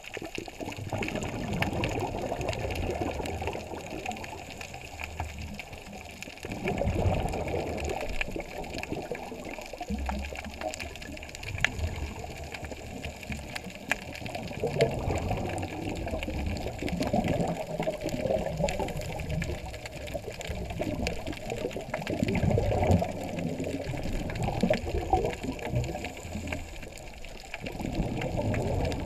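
A scuba diver breathing through a regulator underwater: rushes of exhaled bubbles come in several bursts a few seconds apart, muffled and low.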